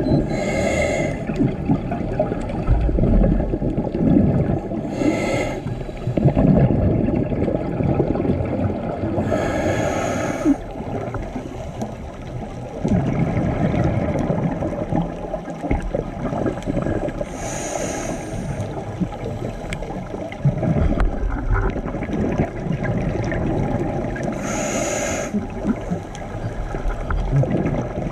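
Scuba diver breathing through a regulator underwater: five rushes of bubbling exhaled air, each about a second long and several seconds apart, over a steady low underwater rumble.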